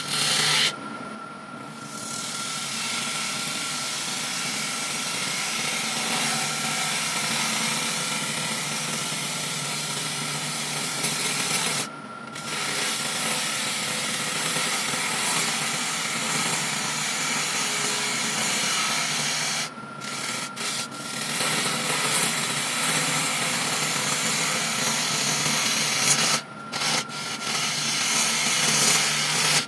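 A turning tool cutting the outside of a large monkey puzzle wood blank spinning on a lathe: a steady hiss and scrape of shavings peeling off the wood, with three short breaks where the tool lifts from the wood.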